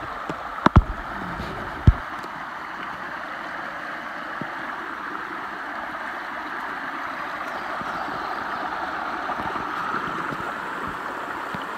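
Small mountain stream running steadily, a continuous babble of water. Two sharp knocks sound in the first two seconds.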